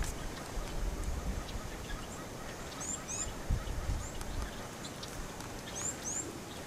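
A bird calling in the bush: short, high, upslurred chirps in quick pairs, twice about three seconds apart, over steady outdoor background noise. There is a brief low rumble about halfway through.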